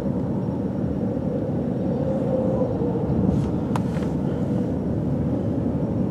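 Steady low road and engine noise inside a moving car, with a single faint click near the middle.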